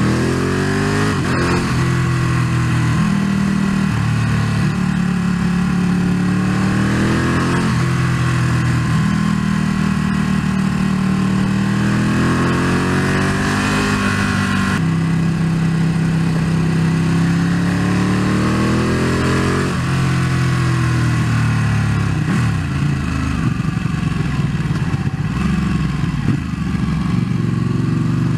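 Ducati 1199 Panigale S's Superquadro V-twin engine accelerating through the gears, its pitch climbing and dropping back at each upshift several times. Near the end it eases off and runs lower and less even, under a steady rush of wind.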